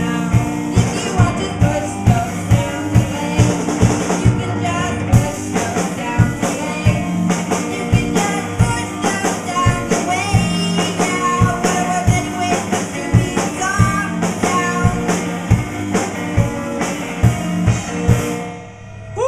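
Small live band playing a song: guitar, drum kit with a steady kick-drum beat about twice a second, and singing. The music drops away near the end.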